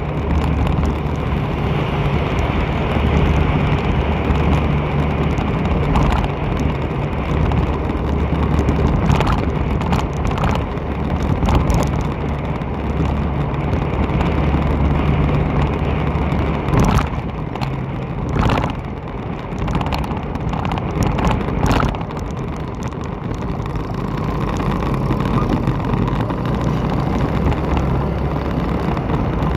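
A motor vehicle's engine runs at a steady cruise with continuous road and wind noise from riding along a street. The low engine hum weakens about seventeen seconds in, and a few short knocks come over the next several seconds.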